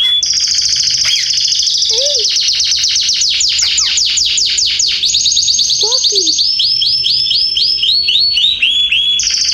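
Domestic canaries singing a long, loud, rolling song. It is made of fast trills of repeated whistled notes and sweeps, switching to a new trill every second or so, with a couple of brief lower chirps beneath.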